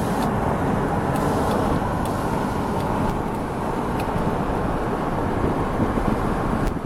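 Road traffic noise: a steady rumble and tyre hiss of motor vehicles.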